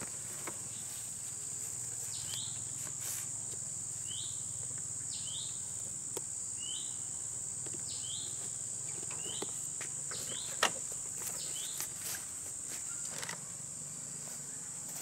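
Steady high-pitched drone of insects such as crickets or cicadas, with short chirps repeating about once a second. A few sharp clicks and knocks from handling the load on the motorbike rack, the sharpest about ten and a half seconds in.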